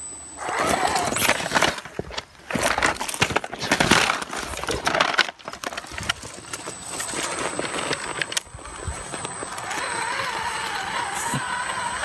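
Electric scale RC rock crawler (Vaterra Ascender with Axial SCX10 axles) crawling over rock: irregular scraping and knocking of tyres and chassis on the rock in the first half, then the motor and geartrain whining steadily, the whine wavering with the throttle, over a thin high electronic whine.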